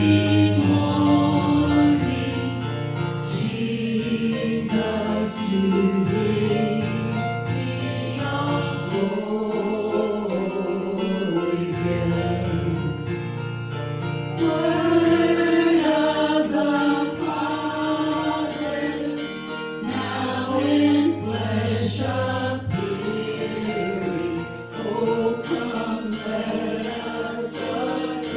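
Gospel song sung with instrumental accompaniment: voices singing together over steady music.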